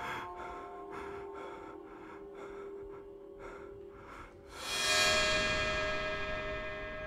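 Eerie music with steady held tones under quick, rhythmic breathing. About four and a half seconds in, a loud bell-like chime strikes and rings down slowly.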